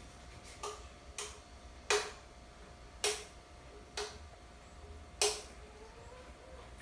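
Six sharp clicks at uneven spacing, three of them louder, over a faint steady hum.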